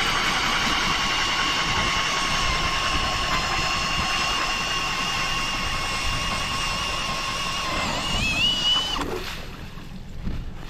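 Power ice auger drilling through lake ice: a steady motor whine that sags slightly under load, then climbs in pitch about eight seconds in as the bit breaks through, and stops about nine seconds in.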